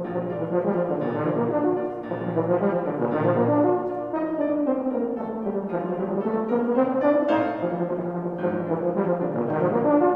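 Euphonium playing a fast solo passage of quick running notes; about halfway through, a run sweeps down and climbs back up.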